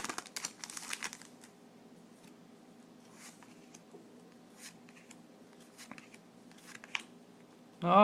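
Foil booster-pack wrapper crinkling for about the first second, then faint, scattered clicks and rustles of trading cards being handled and flipped through.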